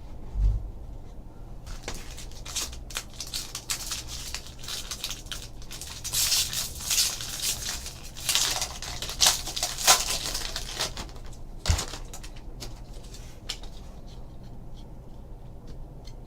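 Trading card packs being handled: foil pack wrappers crinkling and tearing, and cards rustling and sliding against each other, in dense irregular crackles that are busiest in the middle. A low thump about half a second in.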